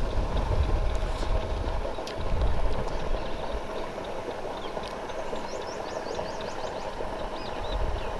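Wind on the microphone in open fields: a steady rushing noise with low rumbling gusts in the first couple of seconds, easing after. A run of rapid high chirps comes in about five seconds in.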